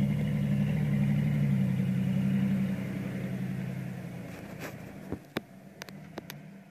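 Chevrolet Silverado 1500 pickup's engine idling steadily, loud at the rear of the truck by the exhaust and growing fainter over the last few seconds. A few sharp clicks near the end.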